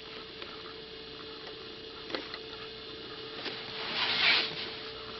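Handling of a boxed toy: a few light knocks, then a brief rustle about four seconds in, over a steady electrical hum.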